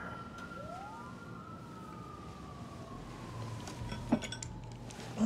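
Sirens wailing, one sliding slowly down in pitch while a second rises and falls across it, with a sharp knock about four seconds in and another at the end.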